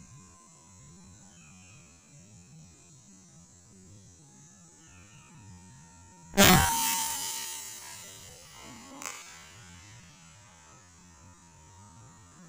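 A single air rifle shot about six seconds in: one sharp, loud report that fades over about two seconds, followed a couple of seconds later by a smaller sharp knock.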